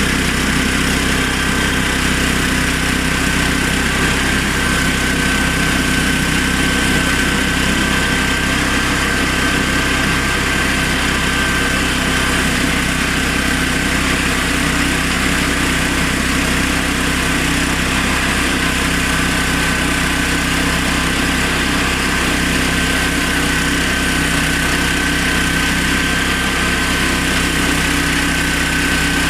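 Honda GX390 single-cylinder petrol engine on a homemade portable sawmill, running steadily at constant speed, with a steady high-pitched whine over the engine note.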